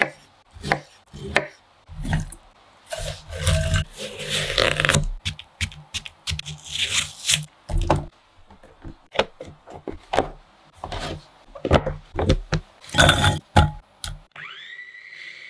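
Kitchen knife cutting bayberries on a wooden chopping board, a run of sharp knocks and scrapes, then pieces of frozen fruit dropping and clattering into the glass bowl of an electric food chopper. Near the end the chopper's motor starts with a rising whine that then holds steady.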